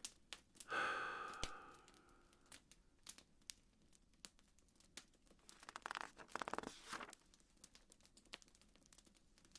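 Faint wood fire crackling, with irregular sharp pops and two brief, louder hissing rushes.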